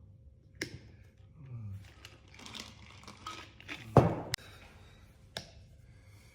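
Handling of a Work Sharp guided knife sharpener between grits: scattered clicks and light scraping, with a sharp knock about four seconds in, the loudest sound, and a second knock just after it.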